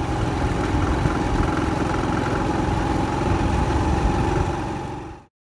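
Street traffic noise: vehicle engines running on a town road, a steady rumble with a held hum, cutting off suddenly near the end.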